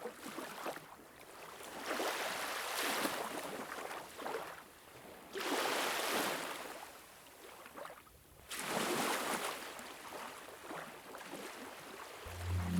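Surf washing on a shore: rushing water that swells and fades three times, a few seconds apart. Music comes in just before the end.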